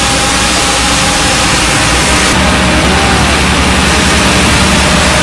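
Engine of heavy earthmoving machinery running steadily, with a fast low pulsing under a loud, even hiss.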